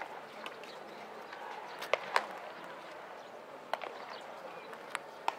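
Sharp, short pops of baseballs smacking into leather catcher's mitts during a game of catch, about six at irregular times, the loudest two close together about two seconds in, over a steady outdoor background.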